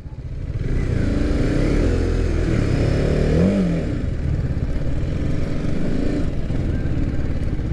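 Single-cylinder engine of a TVS Apache RR 310 motorcycle running as the bike rolls off slowly, with one brief rev rising and falling about three and a half seconds in.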